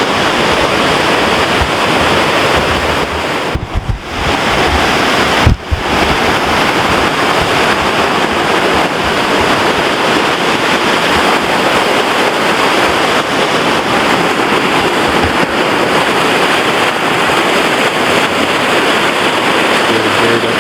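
Steady loud rushing of a creek running high with spring runoff, with wind buffeting the microphone. The wind or a bump knocks the sound out briefly twice, about four and five and a half seconds in.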